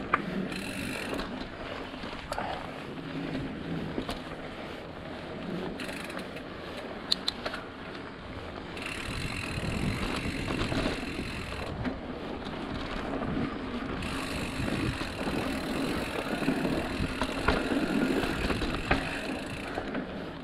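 Mountain bike being ridden along a dirt trail: tyres rolling and the bike rattling over bumps, with a few sharp knocks. It gets louder about halfway through and again near the end.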